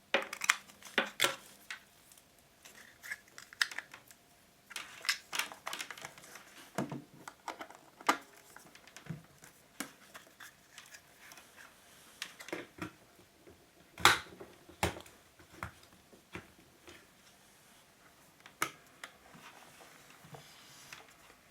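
Scattered clicks, taps and rustles of a mains power adapter's cable and plug being handled and plugged into a watch winder, with the sharpest click about two-thirds of the way through.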